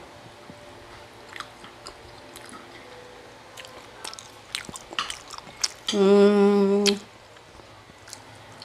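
Someone eating grilled chicken and rice by hand: quiet chewing and lip smacks, then a steady hummed "mmm" lasting about a second, about six seconds in, the loudest sound.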